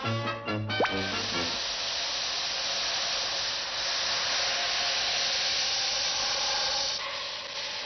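Brass music stops about a second and a half in, just after a quick rising whistle-like glide. A steady, fairly loud hiss then takes over, easing slightly near the end.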